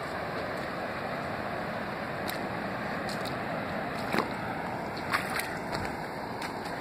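Steady wash of surf from waves breaking on a reef, with a few short sharp clicks in the second half.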